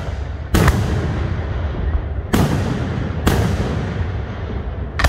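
Aerial firework shells bursting: four sharp booms, the first about half a second in and the last at the very end, each trailing off into a low rumble.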